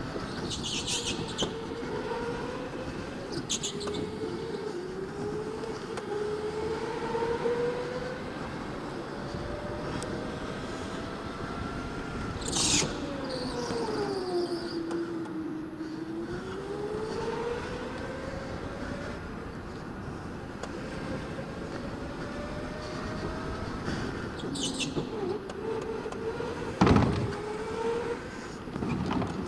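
Electric go-kart motor whining as the kart drives, its pitch rising as it gathers speed and sinking through the corners, with a few brief high tyre squeals. There is a sharp knock about halfway through and a louder one near the end.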